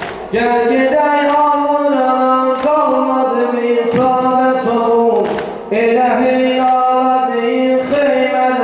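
Men's voices singing an Azerbaijani Shia mourning elegy (mersiyye) for Hüseyn in long, drawn-out phrases, with short breaks just after the start and about five and a half seconds in. Occasional sharp slaps of chest-beating sound between the notes.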